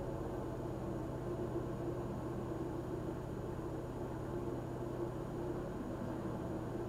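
A narrowboat's inboard diesel engine running steadily under way, an even low hum heard from the bow.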